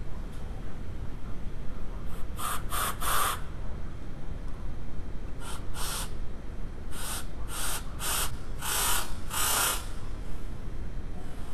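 Short hissing blasts of air, about nine of them in three clusters, as air is blown through a coolant hose to check for a restriction.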